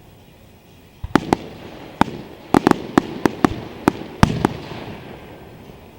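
Aerial fireworks bursting: after a quiet first second, a rapid run of about a dozen sharp bangs with a rumbling, crackling tail, thinning out after about four and a half seconds.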